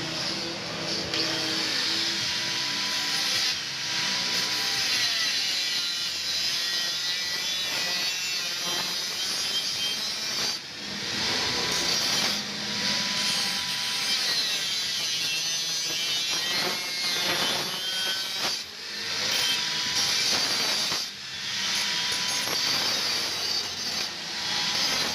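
A power tool working on steel, running continuously with a few brief breaks.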